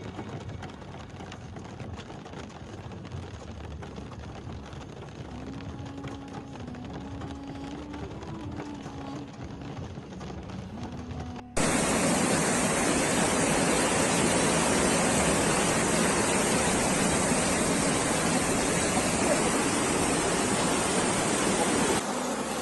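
A quiet hiss with a few faint tones, then a sudden cut about halfway to the loud, steady rush of a fast brown floodwater torrent pouring through a street.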